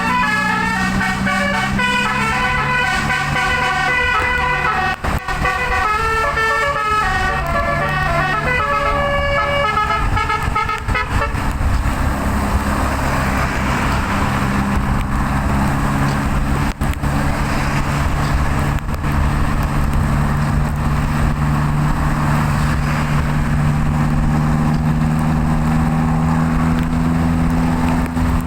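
Telolet bus musical air horn playing a stepped, multi-note tune for roughly the first eleven seconds, over a steady engine drone. The horn then stops and the engine runs on with road noise, its pitch slowly rising.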